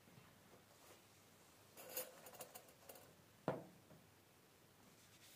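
Kral A12 shotgun parts handled during reassembly: a cluster of small clicks and rattles about two seconds in, then one sharp click about three and a half seconds in, the loudest sound, with a brief ring.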